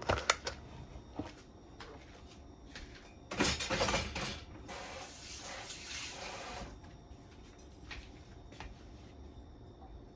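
Kitchen handling noises while ingredients are being prepared: a few sharp knocks and clicks, then a louder rustling noise in the middle lasting about three seconds, fading to scattered clicks.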